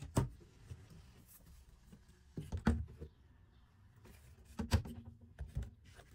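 Four sharp knocks and bumps a second or two apart, from wooden cupboard doors and fittings being handled inside a caravan.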